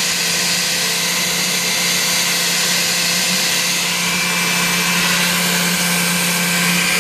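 Electric drill running at one steady speed, turning an oil pump primer to spin the oil pump of a 1978 Chevrolet 454 big-block and prime it with oil.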